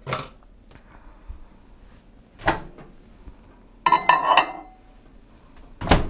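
Ceramic mug and spoon being handled on a kitchen counter: a few separate knocks and clinks, with a short ringing clatter about four seconds in. A sharp click near the end comes as a hand reaches the microwave door.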